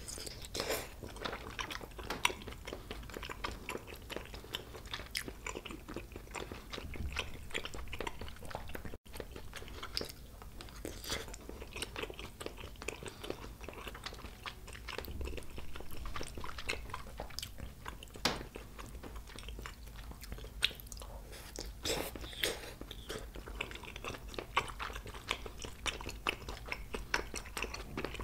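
Close-miked chewing of spicy tteokbokki, chewy rice cakes in a cheesy red sauce, with dense wet mouth clicks and smacks. There is a brief gap about nine seconds in.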